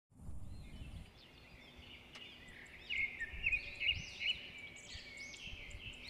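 Several small birds chirping and calling in quick, overlapping whistled notes, loudest in a burst about three to four seconds in. There is a low rumble in the first second.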